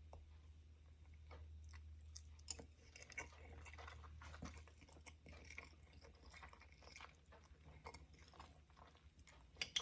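Faint chewing and mouth sounds of a person eating a mouthful of oxtail and butter beans: soft, irregular wet clicks over a steady low hum.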